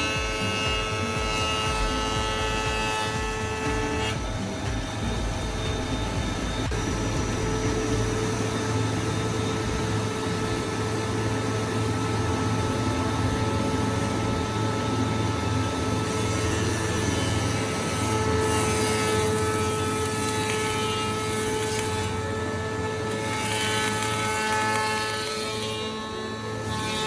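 Woodworking power machinery running steadily with a whine of several tones over a low hum. The tone and hum change abruptly several times, as the machine or its load changes.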